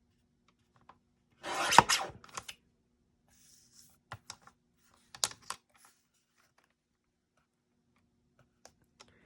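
Paper being handled and cut at a craft desk: a short rasping swipe about a second and a half in, then a few light clicks and taps.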